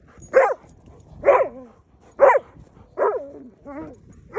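A dog barking over and over, about one bark a second, each bark dropping in pitch.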